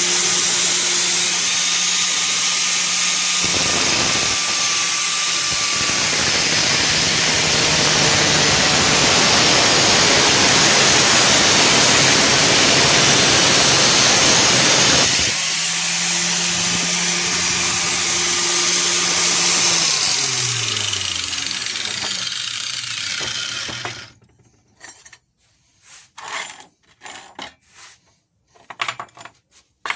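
Angle grinder on a bench stand running at speed. For about twelve seconds it gives a loud harsh sound as the disc cuts, then it runs free, is switched off and winds down, falling in pitch until it stops. A few light clicks and knocks follow.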